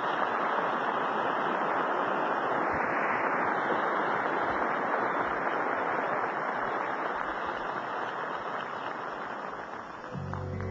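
A large theatre audience applauding steadily, easing slightly toward the end. Near the end, strummed guitar music begins.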